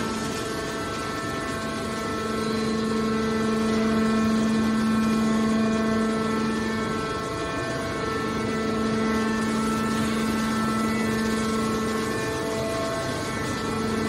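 Hydraulic metal baler's power unit running steadily, a constant machine hum that briefly falters about halfway through and again near the end.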